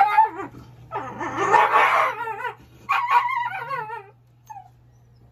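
A Japanese-breed dog crying out as it is held up by the hindquarters for examination. It gives a sharp rising yelp, then a loud rough howl, then wavering, quavering howls that stop about four seconds in.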